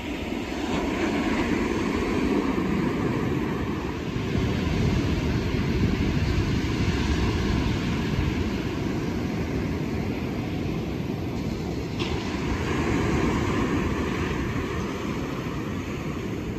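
Steady rushing of ocean waves breaking on the shore, with wind rumbling on the microphone.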